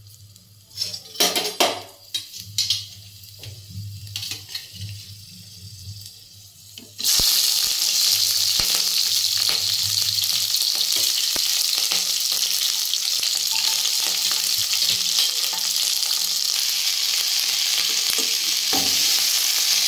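Chopped potatoes, green capsicum and onions going into hot oil in a nonstick kadai. After a few light knocks, a loud sizzle starts suddenly about seven seconds in and the vegetables keep frying steadily. A slotted spatula stirs them through the hiss.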